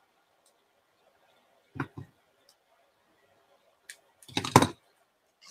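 Scissors snipping the ends of a satin ribbon bow: two short clicks about two seconds in, then a quick run of louder snips and clicks near the end.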